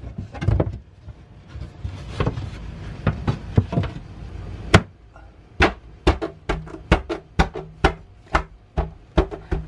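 Sharp knocks on a wooden panel as it is forced into place over a vent opening: a few scattered knocks and handling noises at first, then a fairly even run of about three knocks a second through the second half.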